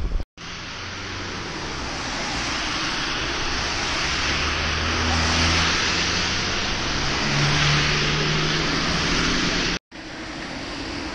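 Road traffic on a rain-wet street: a steady hiss of tyres on wet asphalt that swells slowly and then eases, with the low drone of a heavy lorry's engine underneath. The sound breaks off abruptly twice.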